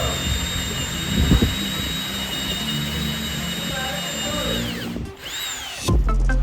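Electric drill motor running steadily with a high whine, then winding down and stopping about four and a half seconds in. Near the end, music with sharp beats comes in.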